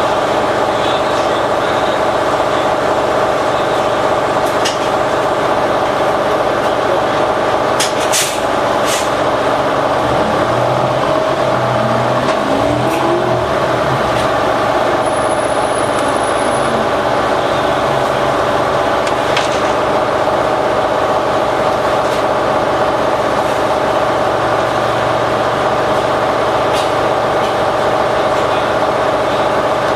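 2011 New Flyer Xcelsior XD40 city bus with a Cummins ISL9 diesel and Allison automatic transmission, heard on board while driving, with a steady high whine over the engine. About ten seconds in, the engine note climbs as the bus pulls away, then falls again a few seconds later. There are a couple of sharp knocks about eight seconds in.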